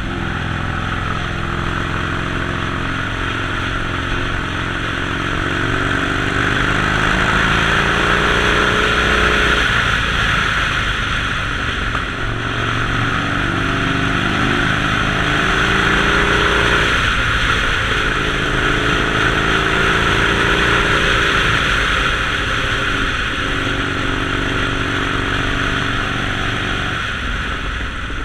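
Harley-Davidson Sportster Forty-Eight's 1200 cc V-twin engine running on the move, its revs climbing and dropping back several times, over a steady hiss.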